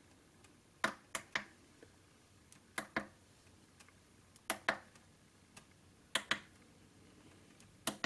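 Push buttons on a portable PA speaker's control panel clicking as they are pressed and released, about five presses, each giving a quick pair of clicks, spaced a second and a half to two seconds apart.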